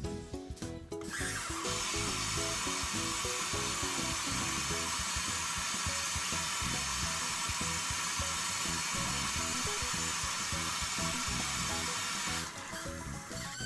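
A loud, steady hiss starts abruptly about a second in and cuts off about a second before the end, over background music.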